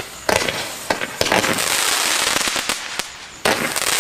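A 98-shot consumer fireworks battery (NICO Woodpecker, 10 mm calibre) firing. Sharp reports come about a third of a second in, a second in and near the end, with a dense hissing crackle of bursting stars between them.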